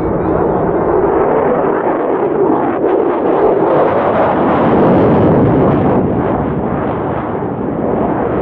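F-16 Fighting Falcon fighter jet climbing away in afterburner: a loud, continuous jet roar that swells a little around the middle.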